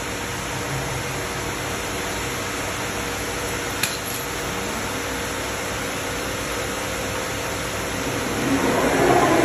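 CNC router running with a steady machine noise and a constant hum, with one sharp click about four seconds in; the sound grows louder near the end.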